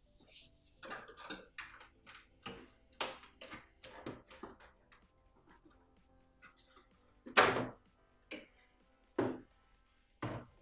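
Fiat 500 plastic tail-light unit being pulled out of the bodywork by hand: a run of clicks, knocks and rattles as it is worked free of its plastic snap-in clips, the loudest knock about seven and a half seconds in.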